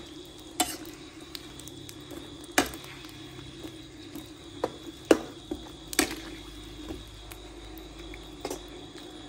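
Irregular sharp knocks and clicks of cooking utensils, about a dozen in all, over a steady hum.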